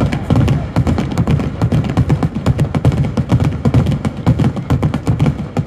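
Daytime fireworks barrage: coloured-smoke shells launching from mortars and bursting overhead in a rapid, continuous stream of bangs and thuds, many a second, that stops abruptly near the end.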